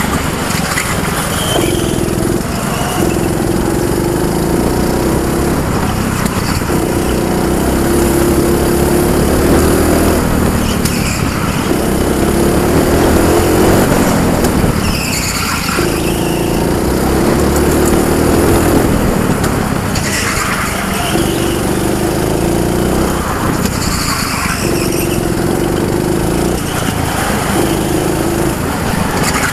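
Go-kart engine heard onboard, running hard and rising and falling in pitch over and over as the kart speeds up on the straights and backs off into the corners.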